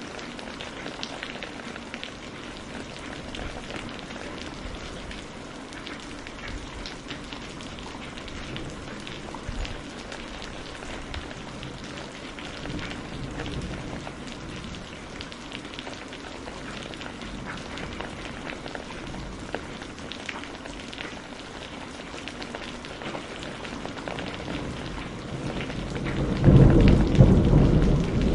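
Steady rain falling, with many small drop ticks. Near the end a deep rumble of thunder swells up and is the loudest sound.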